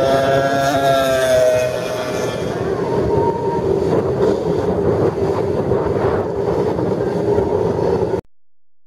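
Classic racing motorcycle passing close at speed, its engine note falling as it goes by. A rougher engine sound carries on afterwards and cuts off suddenly near the end.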